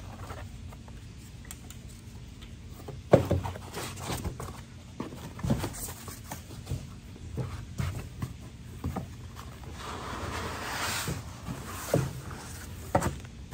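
Unpacking sounds: foam packing and cardboard rubbing and rustling as metal frame rails and foam trays are lifted out of the box, with scattered knocks, the sharpest about three seconds in and a longer stretch of rustling near the end.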